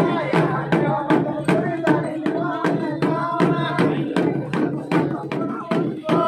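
Rope-laced two-headed barrel drums beaten by hand in a steady rhythm, about three strokes a second, with voices singing along.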